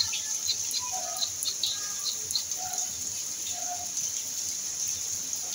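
Steady rain hiss with scattered short, high chirps over it.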